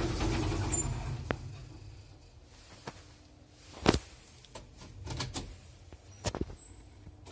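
Zremb passenger lift from 1977 coming to a stop: its low running rumble fades out over the first second and a half. About four seconds in comes one loud sharp clack, then several lighter clicks and knocks as the sliding doors are opened at the landing.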